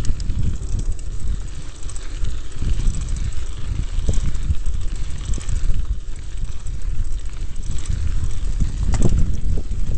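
Wind buffeting the camera microphone over the rattle and tyre noise of a mountain bike descending fast on rough, patched pavement, with irregular knocks from bumps; the sharpest knock comes about nine seconds in.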